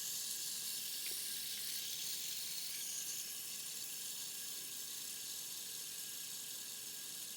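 Faint, steady whir of a spinning fidget spinner's bearing, slowly fading as the spinner winds down.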